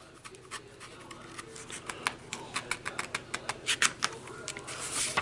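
Paper pages of a picture book being handled and turned: a busy run of crisp clicks and paper rustles, several a second.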